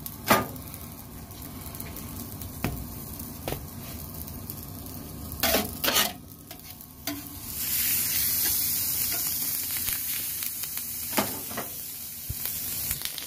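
Finely chopped lamb kokoreç sizzling on a flat griddle, with several sharp knocks and scrapes over the steady frying. The sizzle grows louder about seven and a half seconds in.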